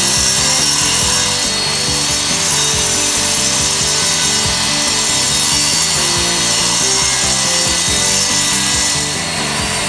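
Handheld circular saw running steadily as it rips along a wood panel, the blade cutting with the grain.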